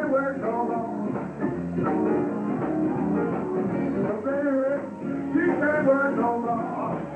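A live blues band with saxophone, electric guitar, Hammond organ, piano, bass and drums plays a shuffle, with a wavering lead line on top. It is a muffled, dull-topped live recording made in the room.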